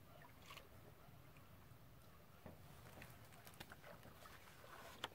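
Near silence: faint low outdoor background with a few soft, brief clicks and taps.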